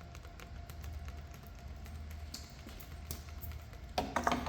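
Scattered light clicks and taps of hand handling at a workbench over a steady low hum, with a louder burst of sound near the end.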